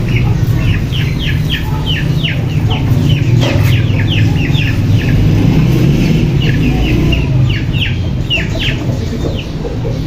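Young chicks peeping rapidly, many short high calls falling in pitch, several a second. A steady low rumble runs underneath.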